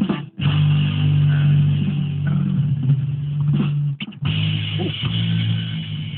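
Background music with guitar and bass, muffled and cutting out briefly twice.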